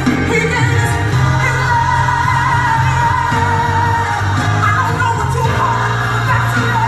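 Gospel song playing: a singer holding long, wavering notes over a steady bass accompaniment.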